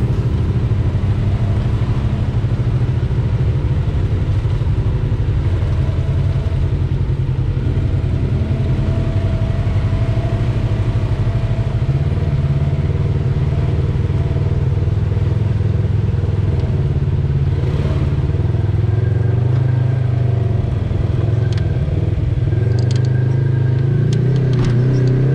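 Side-by-side UTV engine running steadily, its pitch drifting up and down with the throttle, with a few short clicks and rattles in the last third.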